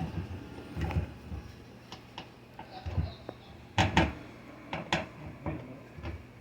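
Scattered knocks, clicks and rattles of hands working around a front-load washer's door opening and rubber door boot, the loudest a quick pair of knocks about four seconds in.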